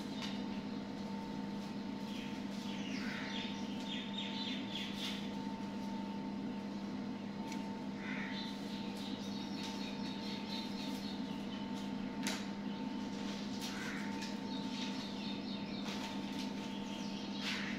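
A steady low mechanical hum, with birds chirping in short bursts every few seconds and a few light clicks.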